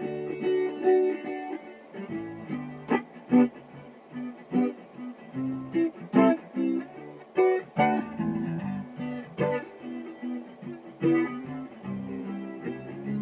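Solo guitar playing picked single notes and short melodic runs, with several hard-struck chords whose notes ring on between attacks.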